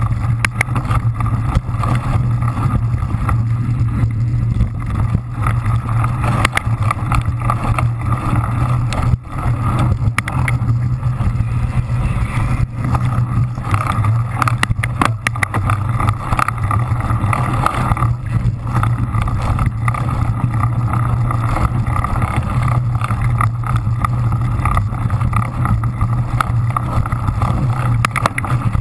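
Cyclocross bike racing over a dirt and sand course, heard through the bike's onboard camera: a steady low rumble of wind and tyres, with frequent small knocks and rattles from the bumps.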